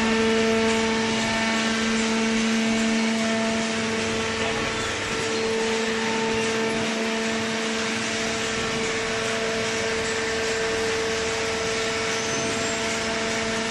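Cardboard baler running: a steady machine hum with a constant pitch over broad mechanical noise, with no strokes or impacts.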